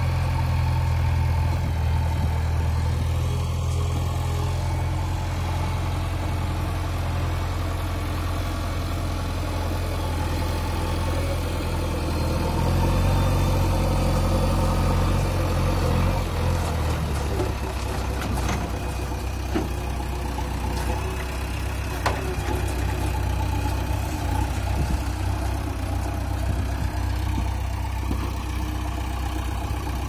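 JCB backhoe loader's diesel engine running steadily while the front loader bucket is worked. About halfway through the deep engine note drops lower, and a few short sharp knocks follow.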